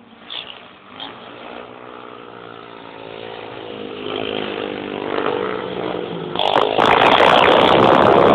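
Racing motorcycle engine at high revs, its note growing steadily louder as the bike comes closer. It is loudest and harsh over the last two seconds as it passes close, overloading the phone's microphone.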